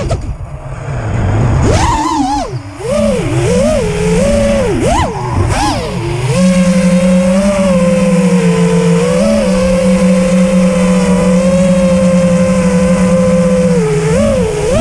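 FPV racing quadcopter's four Rotor Riot 2207 2450kv brushless motors spinning 5-inch tri-blade props, a whine that rises and falls quickly with the throttle, then holds a nearly steady pitch from about six seconds in, and swings up again near the end.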